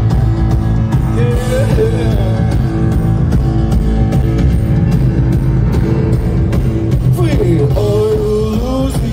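Live band playing loud through the PA, heard from within the crowd: a steady drum beat, bass and guitar. A singing voice comes in briefly about a second in and again near the end.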